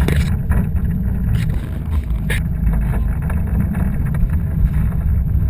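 Wind buffeting the microphone of a motorboat under way, a steady heavy rumble, with a few brief knocks in the first half.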